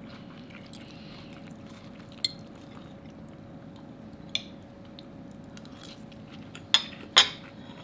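A fork clinking against a ceramic plate while eating: a few faint taps, then two sharper clinks near the end.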